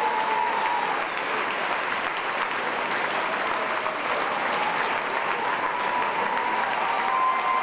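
Large audience applauding steadily in a long, sustained ovation.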